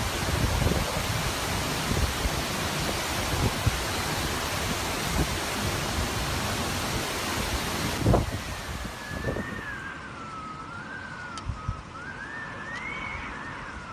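Storm wind and rain roaring as a steady rush of noise, with low thumps of gusts buffeting the microphone. About eight seconds in, a sharp thump is followed by a quieter stretch with a thin, wavering high whistle that slides up and down.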